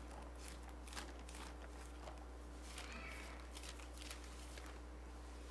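Faint rustling of Bible pages being turned, with a steady low hum underneath.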